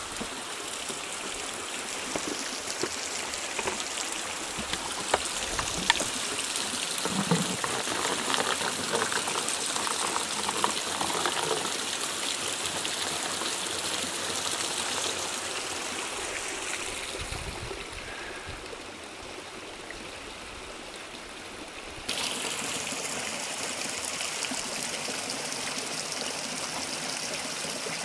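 Cold spring water gushing from spouts in a wooden barrel and splashing onto wooden decking, with one jet running into a plastic bottle being filled. A few light knocks in the first half; the rush changes abruptly about three-quarters of the way through.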